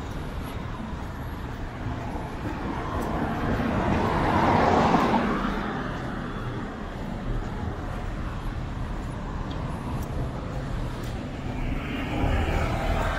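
Road traffic: a car passes, its noise swelling to a peak about four to five seconds in and then fading, over a steady hum of traffic. Another vehicle approaches near the end.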